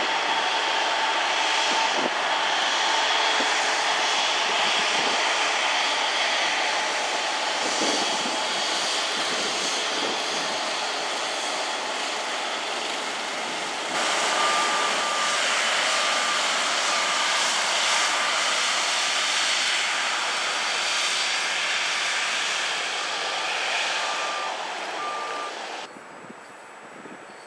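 Airbus A350-900's Rolls-Royce Trent XWB turbofans running at taxi power: a steady jet rush with a high engine whine. Short, evenly spaced electronic beeps come twice, about halfway and again near the end, and near the end the engine sound drops to a much quieter distant hum.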